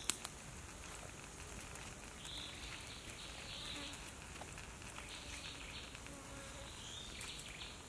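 Faint insects buzzing, a high hum that comes and goes in stretches of a second or two.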